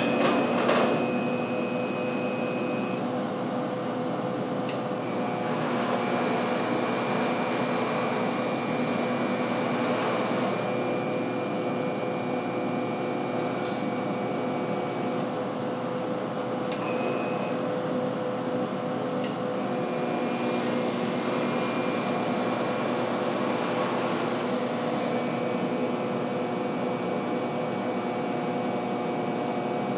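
Branson Benchmark ultrasonic aqueous cleaning line running through its program: a steady machine hum with a high whine that cuts in and out several times.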